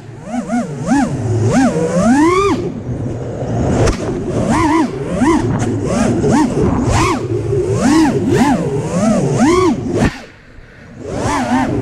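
FPV freestyle quadcopter's brushless motors and propellers whining, the pitch swooping up and down sharply with every throttle punch and chop. The sound drops away briefly about ten seconds in as the throttle is cut, then climbs back.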